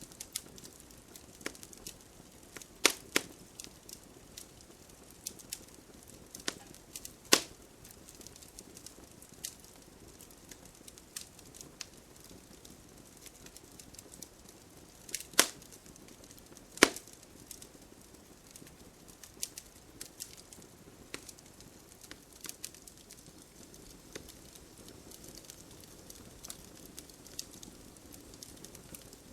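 Campfire wood burning with a steady low crackle and scattered sharp pops. The loudest pops come about three seconds in, at about seven seconds, and twice between fifteen and seventeen seconds.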